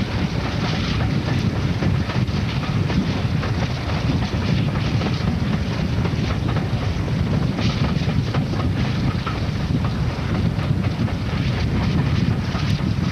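Passenger train running on the rails, heard from an open carriage window as a steady rumble with wind buffeting the microphone.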